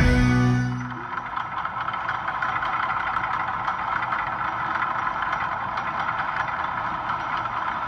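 Music fading out in the first second, then a motor running steadily with a rough, even drone.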